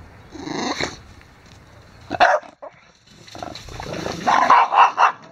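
Dog barking: one sharp bark about two seconds in, then a quick run of several barks near the end.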